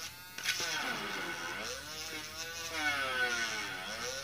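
Pen-style mini electric drill boring into a board with a wood bit. Its motor whine drops out briefly just after the start, then repeatedly sags in pitch as the bit bogs down under load and climbs again as it frees. This is a small motor struggling with material too hard for it.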